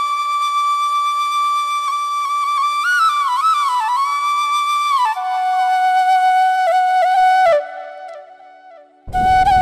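Solo flute music: long held notes with small ornamental bends, stepping down to a lower note about five seconds in. The melody breaks off briefly near the end, then starts again.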